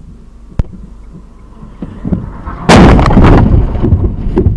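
Car crash: a red car hits the front of a stopped car with one very loud impact about two and a half seconds in, followed by crunching and rattling. A single sharp click comes shortly after the start.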